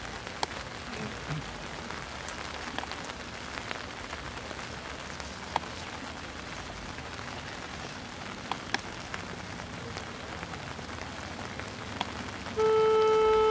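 Steady rain falling, with scattered drops ticking close by. Near the end a marching band sounds a loud, held chord.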